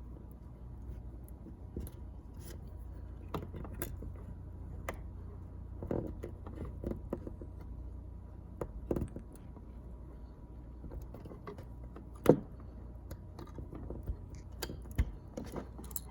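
Scattered light clicks and taps of CAT6 cable wires being handled and pressed into the slots of a plastic network jack, with one sharper click about twelve seconds in, over a steady low hum.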